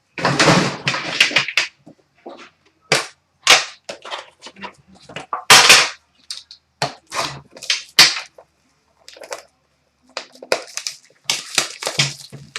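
Packaging being opened by hand: plastic wrap and pack wrapper crinkling and tearing, with a long tear in the first two seconds, then short sharp crackles as the card pack is handled.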